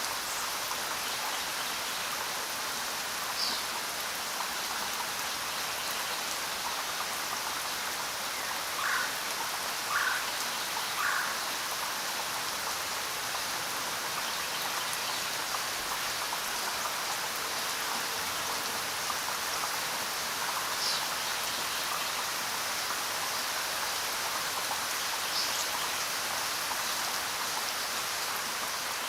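Steady rain falling, an even hiss with a few louder single drops now and then, three close together about ten seconds in.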